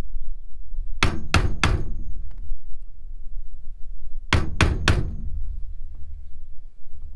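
Claw hammer striking a wooden block to drive a new rear main seal into a small generator engine's housing: two quick sets of three blows about three seconds apart, over a steady low rumble.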